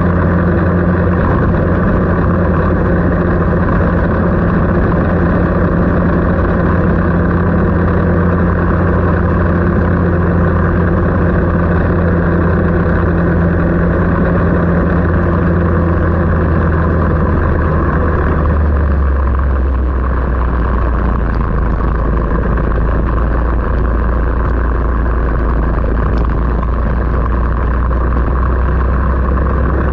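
A vehicle engine running steadily at one speed, then settling to a lower, steady pitch about two-thirds of the way through.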